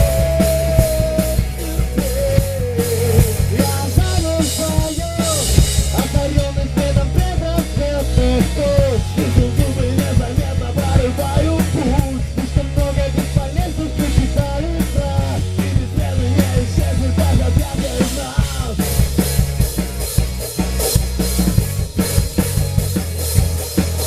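Rock music in an instrumental break: drum kit and bass with a melodic lead line that bends and glides in pitch.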